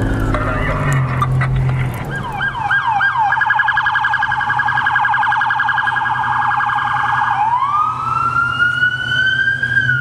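Electronic emergency-vehicle siren: a few slow sweeps, then a fast yelp for about four seconds, switching near the end to a slowly rising wail. A low steady engine hum sits under it.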